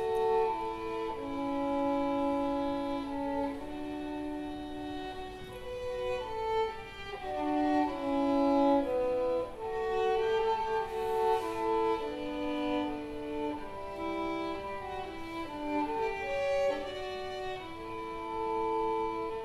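Slow bowed-string music led by a violin, with long held notes sounding in several parts at once.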